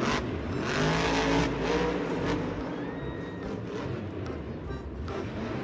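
Car engine running and revving, its pitch rising and falling gently in the first couple of seconds, then settling lower.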